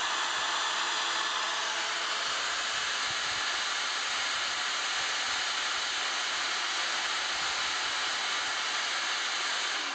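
Electric drill driving a drill pump, its motor running at a steady high speed. It is switched off at the very end and its pitch falls as it winds down.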